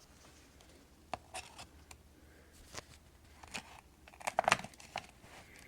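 Scattered scratches and small clicks of a thin plastic pry tool working under the glued-in battery of a MacBook Pro, with a louder cluster about four and a half seconds in.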